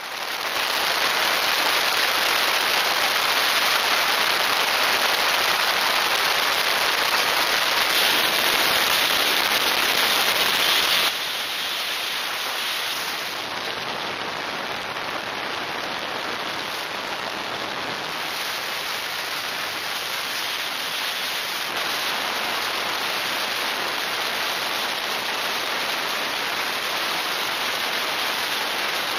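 Steady wind rush over the camera microphone on a motorcycle at freeway speed, a hiss like heavy rain. It drops a little in loudness about eleven seconds in.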